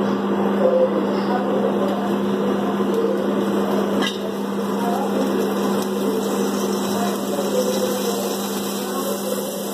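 Steady motor hum with a broad hiss over it, unchanging throughout, and a single light tap about four seconds in.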